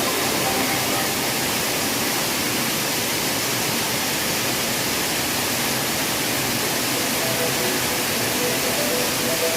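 Waterfall water rushing: a steady, even roar of falling water with no breaks.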